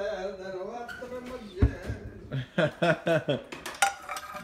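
Mostly people talking, with one sharp knock about a second and a half in.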